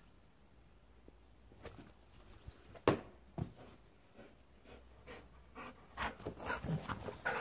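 Pit-bull-type dog fetching a toy ball: a few sharp knocks, the loudest about three seconds in, then quick panting and paw steps near the end as the dog comes back with the ball in its mouth.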